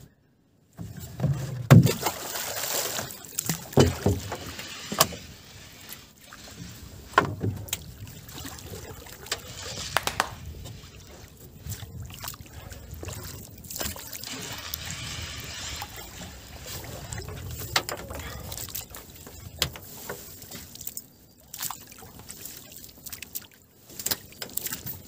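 Irregular sharp knocks and clatter on a small boat's hull while a fishing net is thrown and hauled aboard over the gunwale by hand, with stretches of splashing and rustling in between. The loudest knocks fall in the first few seconds.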